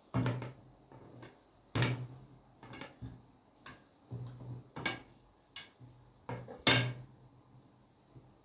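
Long thin wooden rolling pin (oklava) knocking and rolling on the table as dough is rolled out around it: about nine irregular wooden knocks, the loudest just under two seconds in and near the end.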